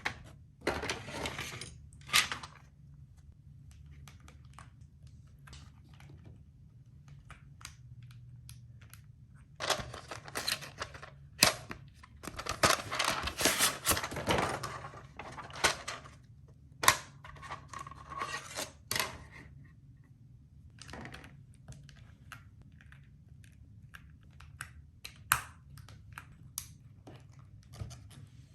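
Irregular clusters of sharp plastic clicks and clacks from a mechanical keyboard being worked on, in bursts with pauses and scattered single clicks between, over a steady low hum.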